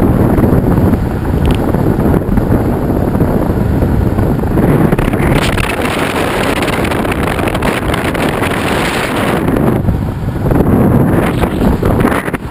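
Wind buffeting the microphone of an action camera on a moving road bicycle: a loud, steady rush that swells and eases a little.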